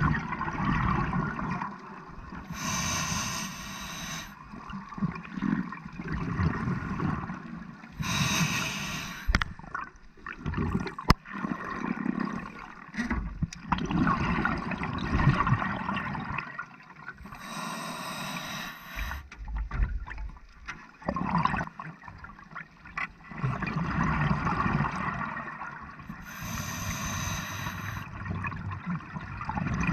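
Scuba diver breathing through a regulator underwater: four slow breaths. Each is a short hissing inhale through the demand valve, followed by a longer bubbling rush of exhaled air.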